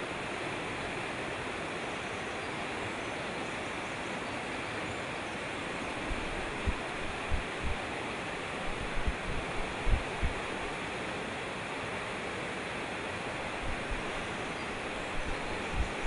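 Mountain stream rushing over a rocky cascade: a steady, even rush of white water. A scatter of brief low thumps comes in about six seconds in and again near the end.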